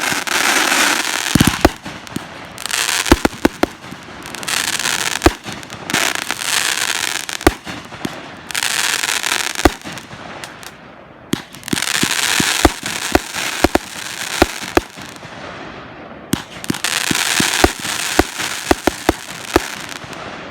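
Fireworks show shells going off: many sharp bangs in quick succession, alternating with spells of dense crackle that each last a second or two.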